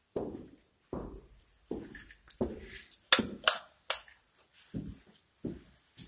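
Footsteps walking at a steady pace, about one and a half steps a second, with a few sharper, brighter clacks in the middle.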